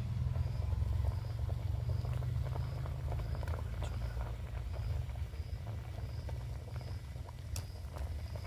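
Pot of dal dhokli simmering on a stove: faint bubbling and crackling over a low steady rumble.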